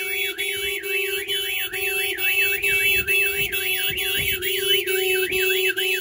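Starline S9 car alarm siren warbling rapidly up and down, about four sweeps a second, together with the car's horn sounding steadily underneath, both set off because the alarm cannot detect its driver-recognition tag.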